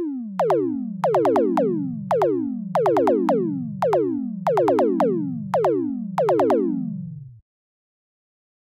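Electronic outro jingle of synthesizer and drum-machine sounds. A run of tones each drops sharply in pitch, coming in quick clusters about twice a second, and the jingle cuts off about seven seconds in.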